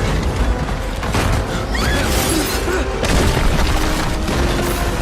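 Film sound effects of the Hoover Dam collapsing in a massive earthquake: heavy, continuous rumbling and booming destruction, mixed with a dramatic film score.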